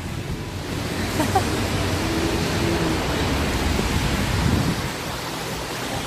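Storm wind rushing and buffeting the phone's microphone, a steady noise with a low rumble, with rain-soaked outdoor ambience under it.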